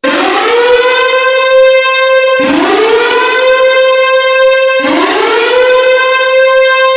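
Emergency alert siren sounding loud in repeated cycles: each one rises quickly in pitch, holds a steady wail for about two seconds, then cuts off abruptly and starts again, about three times.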